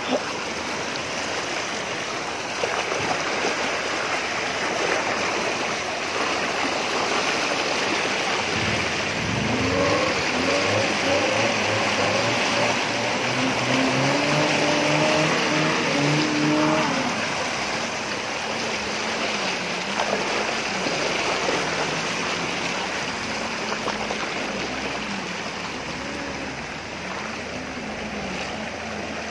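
Muddy floodwater rushing and churning against the side of a four-wheel-drive vehicle wading through it. About nine seconds in the vehicle's engine note rises and holds for several seconds, then eases back and wavers under the water noise.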